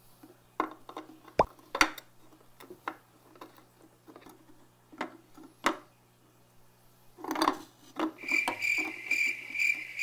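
Chunks of dry reef rock knocking and clicking against the glass of a small aquarium as broken pieces are fitted back together, with a crinkle of bubble wrap just after seven seconds. About eight seconds in, cricket chirping starts, an evenly repeating high chirp about three times a second.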